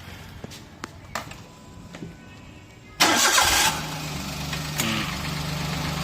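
Maruti 800's three-cylinder petrol engine cranked and started about three seconds in, a short loud burst, then settling straight into a steady idle. A few light clicks come before it.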